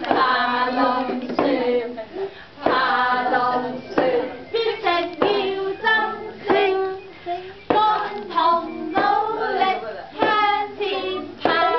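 Adults and toddlers singing a dragon-boat rowing song together, with sharp hand claps now and then on the beat.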